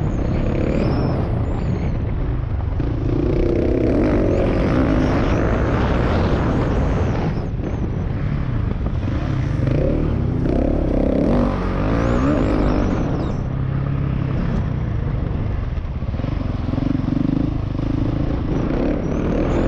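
Husqvarna 701 Enduro's single-cylinder engine running hard under a rider, its note rising and falling with the throttle and easing off briefly a few times.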